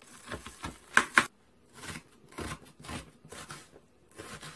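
Kitchen knife cutting through a peeled onion onto a plastic cutting board: a series of short slicing strokes, each ending in a knock of the blade on the board, the two sharpest close together about a second in.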